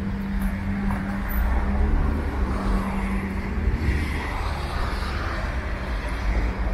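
Street ambience dominated by road traffic: motor vehicle engines running with a steady low hum under continuous traffic noise.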